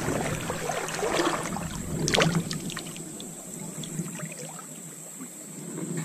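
Water sloshing and splashing as a person wades out into shallow river water, with a few sharper splashes about one to two seconds in, then quieter.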